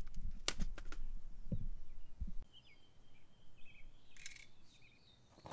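Handling noise as the phone is moved and set down: rumbling and rustling with a few sharp clicks and two low thumps in the first couple of seconds. Then it quiets to faint bird chirps, with one more brief rustle near the end.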